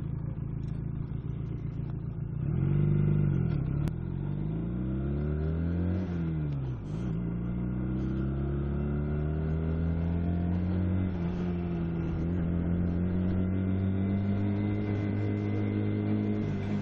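Motorcycle engine ticking over steadily, then revving up as the bike pulls away. Its pitch rises and drops twice as it shifts up through the gears, about four and seven seconds in, then climbs slowly under acceleration.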